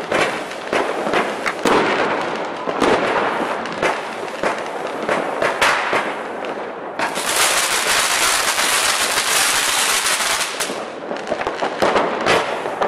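Fireworks going off in quick succession: dense crackling pops and bangs over a continuous hiss. About seven seconds in, the crackle turns suddenly brighter and sharper.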